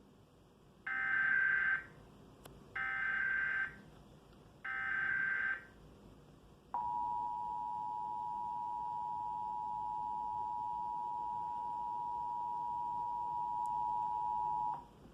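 Emergency Alert System Required Monthly Test: three short bursts of SAME header data, each about a second long and spaced about a second apart, followed by the EAS two-tone attention signal (853 and 960 Hz) held steadily for about eight seconds, then cutting off just before the end.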